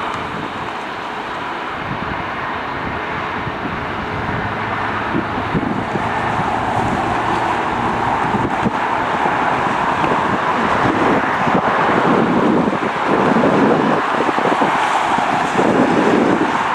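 Steady roar of a jet airliner's engines, growing slowly louder, with wind buffeting the microphone in the second half.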